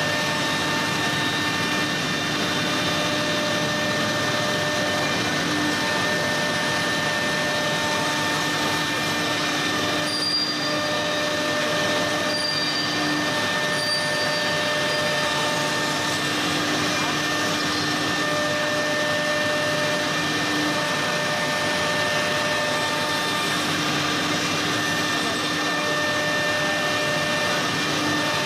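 Wood-door CNC router running, with a steady whine from its spindle motors over dense machining noise. Several held tones drop out and come back every few seconds.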